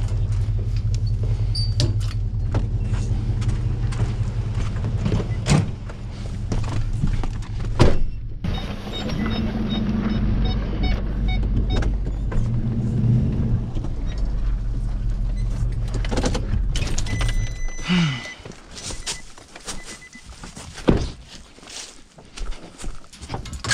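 Pickup truck engine running with a steady low hum, with door and dog-box thunks and an evenly repeating high beeping from the cab partway through; the engine hum stops about three quarters of the way through, leaving scattered clicks and knocks.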